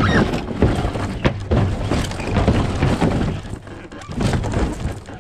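Debris of a demolished ice shack crashing and breaking, a run of repeated heavy knocks and thuds.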